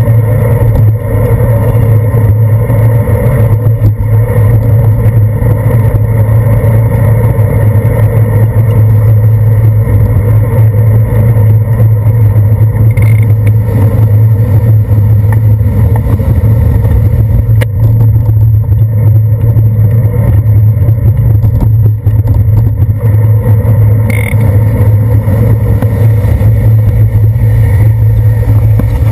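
Loud, steady rumble of wind and road vibration picked up by a handlebar-mounted GoPro Hero 2 as a bicycle rides along a wet city street, with the passing car traffic blended into it.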